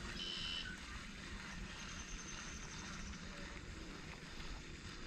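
Wind buffeting the microphone: a low, steady rumble. About a quarter second in there is a brief high-pitched whir.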